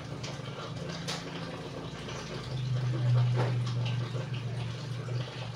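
A steady low hum, louder for a couple of seconds in the middle, under soft rustling of a cloth wiping a baby monkey's face and hands.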